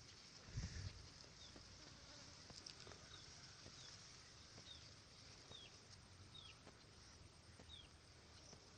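Near silence: faint room tone with a soft low thump about half a second in and faint, short high chirps repeating roughly once a second.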